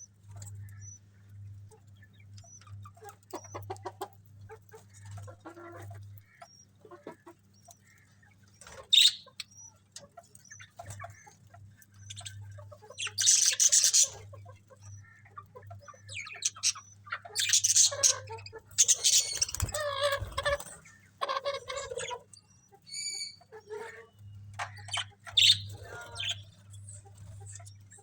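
Budgerigars chirping and chattering in irregular bursts, some short high chirps and some longer harsh warbling runs of a second or two.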